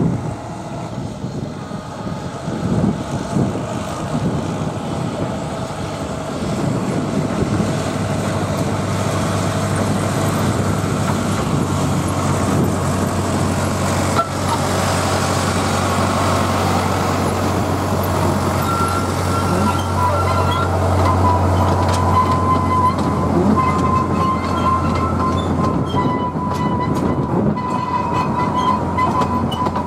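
Alan Keef four-wheel diesel-hydraulic narrow-gauge locomotive running past with its coaches: a steady low engine drone that builds as the train nears and passes. Past the middle, a high, steady squealing tone joins in.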